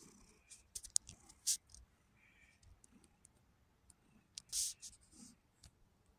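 Quiet scattered clicks and light rustles, with one louder, longer scratchy rustle about four and a half seconds in.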